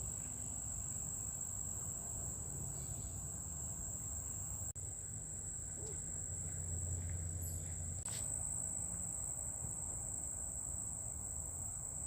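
Insects trilling in one steady, high-pitched, unbroken drone, with a low rumble underneath.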